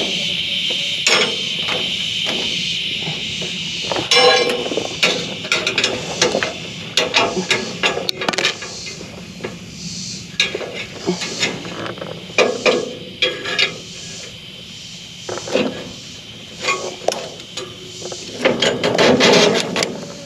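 Irregular metallic clinks, knocks and scrapes from hand work on a hay baler's pickup tines, pulling out twine that has wrapped tightly around them. About four seconds in there is a quick rattling run.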